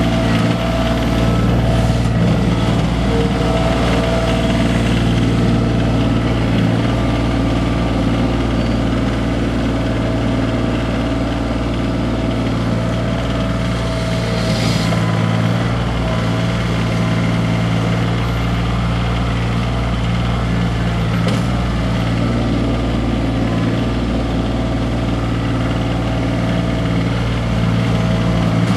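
Kioti CX2510 compact tractor's three-cylinder diesel engine running steadily at constant revs while the loader works gravel, with a brief hiss near the middle.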